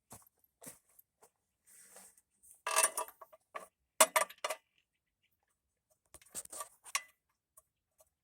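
Metal tools and parts clinking and rattling as they are handled, in three short bursts of clicks, the loudest about three and four seconds in.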